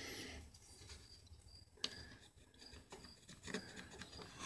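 Faint scratching of a pencil drawn along a steel square on plywood, with one light tick a little under two seconds in.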